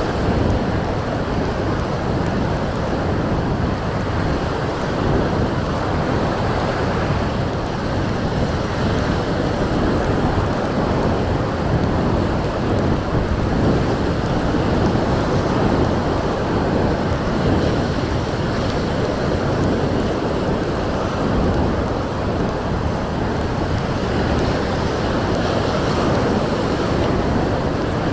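Strong wind buffeting the microphone over the steady wash of sea surf, a loud, continuous, rumbling noise with no let-up.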